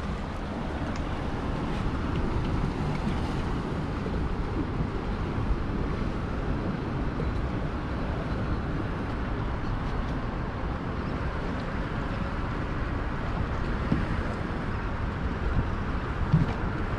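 Steady wind noise buffeting the microphone on an open boat on choppy water.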